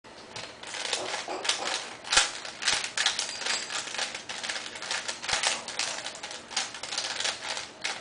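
Plastic 3x3x3 Rubik's cube being turned rapidly one-handed in a speedsolve: a fast, irregular clatter of clicking layer turns, with a few sharper clacks.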